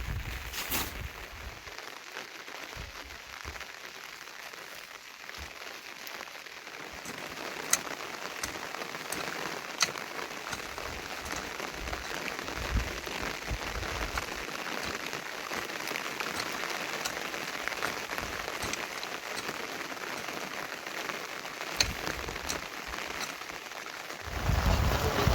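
Steady rain falling, with scattered louder single drops standing out.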